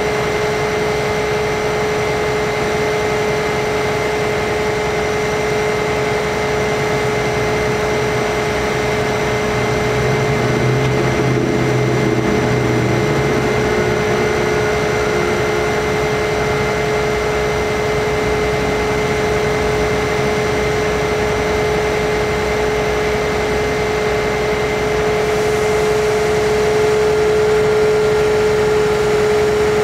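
Bucket truck's Cummins ISC diesel engine running steadily to drive the hydraulics while the Hi-Ranger aerial boom moves, with a steady whine over the engine note. A deeper note swells briefly about ten seconds in.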